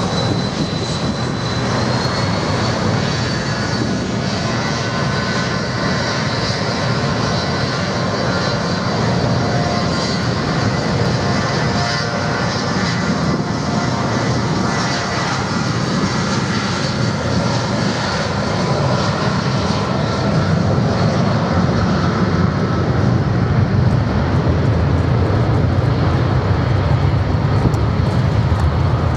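Four-engined BAe 146/Avro RJ jet at takeoff power on its takeoff roll: a steady jet whine over a rumble. The whine rises a little in pitch about two seconds in, and the sound grows louder near the end as the jet rotates.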